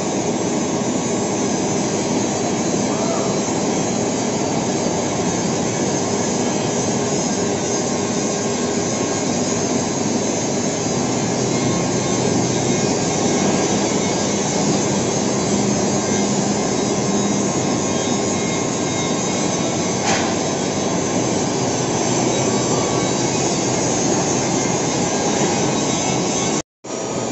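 Large lathe turning a grooved steel rolling-mill roll, the tool cutting steadily into the metal with a loud, even machining noise. The sound drops out for an instant near the end.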